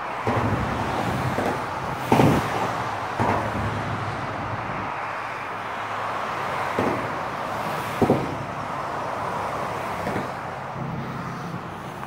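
Cars crossing a highway overpass, their tyres striking the bridge's expansion joint with a sudden thump about six times, two of them louder, over a steady rush of traffic.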